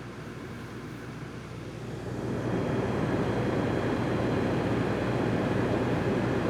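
A steady engine rumble that gets louder about two seconds in and then holds.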